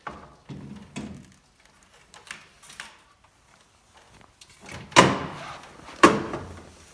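Quarter midget engine being slid into the chassis and set on its motor plate: scattered light knocks and scrapes, then two heavy clunks about a second apart in the second half.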